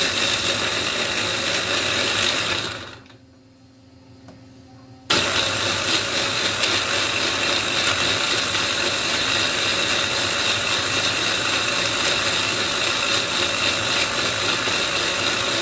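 Small electric chopper motor blending a lemon with sugar and a little water. It runs, winds down and stops about two and a half seconds in, then starts again suddenly at about five seconds and runs steadily.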